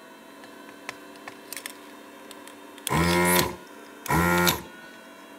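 A ZD-8915 desoldering station's vacuum pump running in two short bursts of about half a second each, about three seconds in and again a second later, sucking molten solder off circuit-board pins. A few faint clicks come before the first burst.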